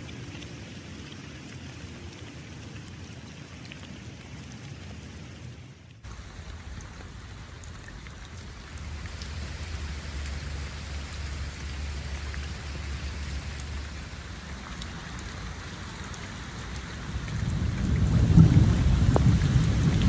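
Rain falling steadily, with a low rumble that swells up near the end and becomes the loudest sound.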